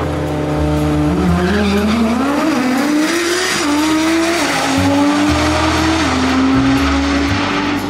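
Twin-turbo Lamborghini Huracán V10 accelerating hard down a drag strip. The engine note climbs steadily, then drops at each upshift, about three and a half, five and six seconds in.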